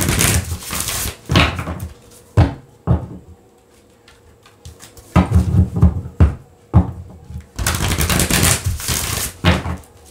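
A deck of cards being shuffled by hand: several short bursts of riffling and flicking cards, a quiet spell about four seconds in, then a longer run of rapid shuffling near the end.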